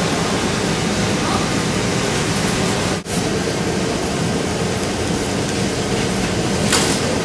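Steady mechanical din of many industrial sewing machines running at once on a garment factory floor, with a brief drop-out about three seconds in.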